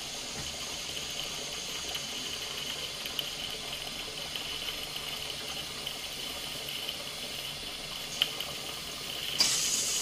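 Steady hiss from a gas-fired Stuart 501 model steam boiler at about 25 psi. Near the end a louder hiss starts as steam begins to blow through the regulator into the Stuart S50 mill engine, clearing its steam passage.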